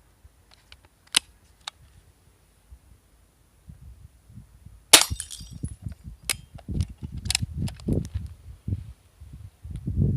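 A single shot from a Hatsan Mod 25 Supercharger .22 air pistol about halfway through: a sharp crack with a brief ringing tail. Small clicks come before it, and more clicks and dull knocks of handling come after.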